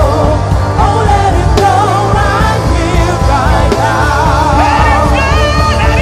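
Gospel worship music: a singing voice in long, wavering, gliding lines over sustained chords and a steady bass.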